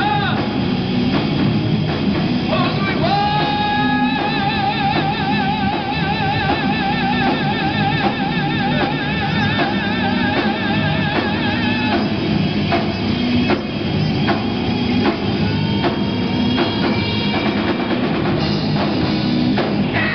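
A live rock band playing loud: electric guitars, bass and drum kit together. In the first half a long high note with a wide, even vibrato is held for about nine seconds, and a shorter steady high note follows later.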